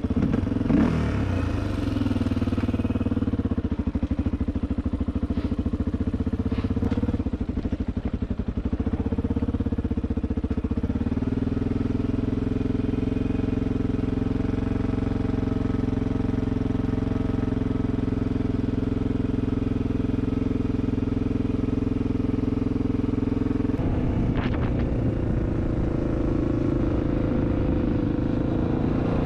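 Honda XR400R dirt bike's single-cylinder four-stroke engine running steadily under way, its note changing about a third of the way through and again near the end.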